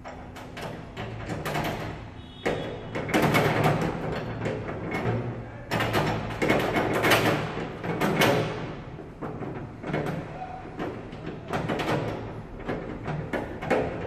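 Steel padlock bracket and bolts rattling and scraping against a van's sheet-metal door as the bracket is fitted and bolted on, in irregular bursts of handling noise.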